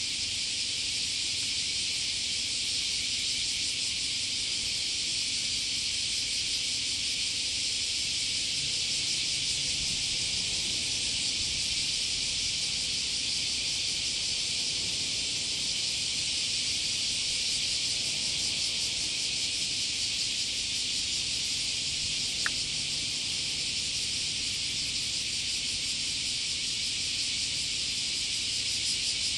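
Steady, dense, high-pitched drone of an insect chorus running unbroken, with one short click about two-thirds of the way in.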